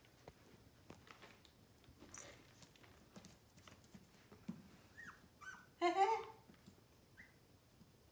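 Pomeranian puppy whining in short high squeaks, with a louder yip about six seconds in, among light clicks.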